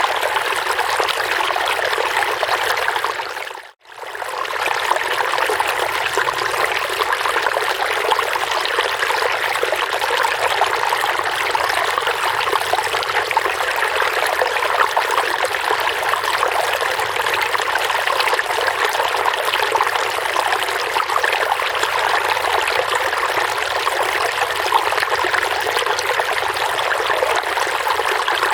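Running water babbling steadily, with one brief fade to near silence about four seconds in.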